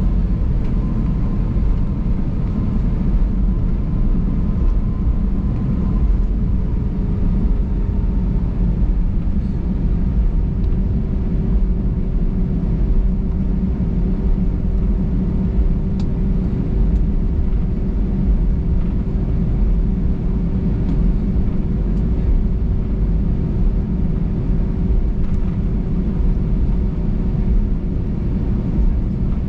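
Airbus A320 cabin noise while taxiing: a steady low rumble of the engines at idle, with a faint steady whine that dips slightly in pitch a few seconds in.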